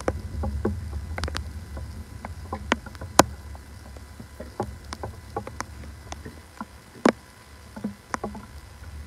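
Handling noise at a lectern microphone: scattered sharp clicks and knocks over a low steady hum, the two loudest knocks about three and seven seconds in.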